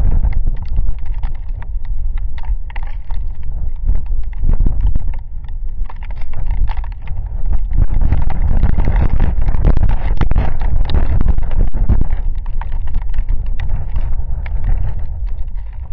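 Heavy rain with gusty wind buffeting the microphone as a deep rumble, and raindrops pattering and ticking sharply on the camera, swelling loudest in the middle.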